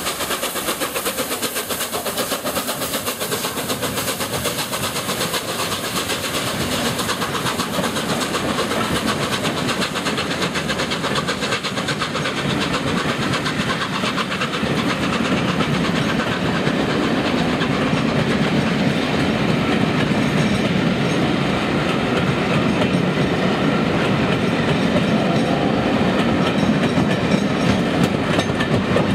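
LNER A4 Pacific steam locomotive 60019 'Bittern' passing close by, then its train of coaches rolling past with a steady clickety-clack of wheels over rail joints. The rumble grows louder and deeper about halfway through.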